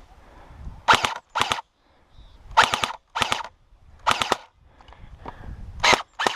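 Airsoft rifle firing about seven short bursts of a few rapid shots each, spaced by brief pauses.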